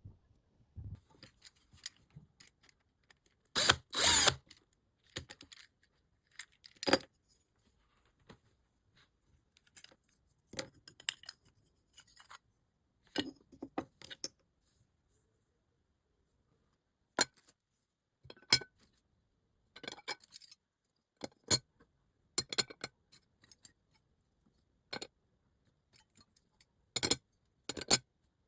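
Small metal parts of a 1:64 die-cast model car clicking, tapping and clinking as they are handled and worked on, in scattered short sounds with a longer scrape about four seconds in.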